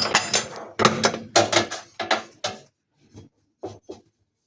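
Metal clanks and knocks as the tub-removal tool is fitted onto the washing machine: a quick run of sharp, ringing strikes, then three fainter knocks.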